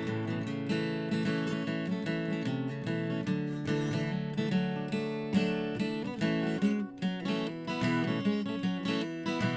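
Acoustic guitar strummed and picked in an instrumental break, with no singing.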